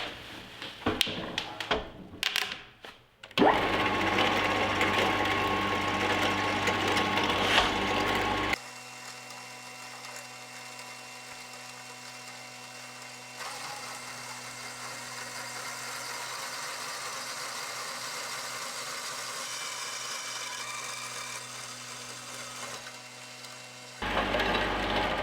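An electric power tool running, most likely while metal tubes are cut. A few knocks come first. Then a loud steady motor run with a low hum lasts about five seconds, followed by a long, quieter, steady running with a faint whine. It turns loud again near the end.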